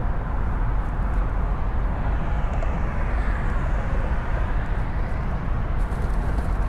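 Steady low rumble of road traffic on the causeway bridge.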